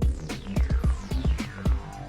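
Electronic background music with a steady kick-drum beat, sharp clicks and a synth sweep falling in pitch across the bar.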